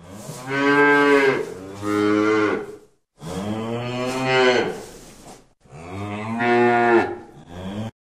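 Cow mooing: three long moos in a row, each lasting a couple of seconds.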